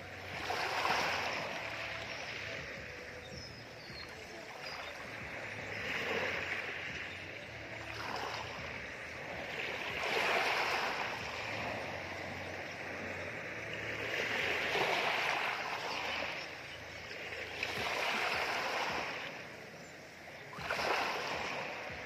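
Small sea waves washing in over a pebble beach: a wash of water that swells and falls away about six times, every three to four seconds.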